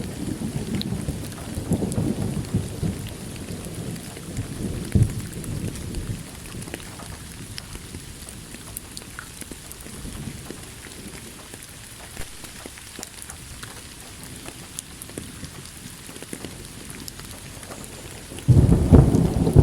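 Thunderstorm: steady rain hiss, with rolling thunder rumbling at the start and dying away over the first several seconds. A sudden loud thunder crack breaks in near the end.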